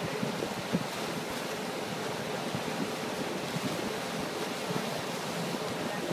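Steady rush of wind and churning wake water behind a moving motorboat, with wind buffeting the microphone.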